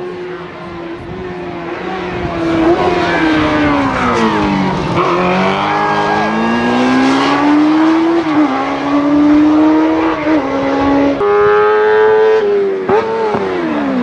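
Racing sidecar motorcycle's engine revving hard through the hairpins. Its pitch falls to a low point about five seconds in as it slows, climbs with several abrupt steps as gears change, and drops sharply again near the end.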